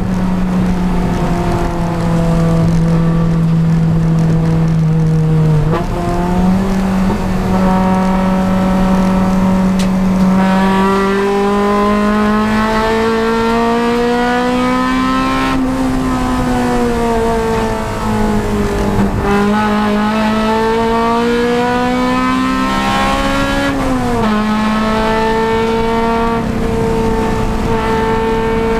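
Honda Civic Si race car's four-cylinder engine running at high revs, its pitch climbing and easing as it pulls through corners and straights. The pitch steps up about six seconds in and drops quickly about twenty-four seconds in, as it changes gear.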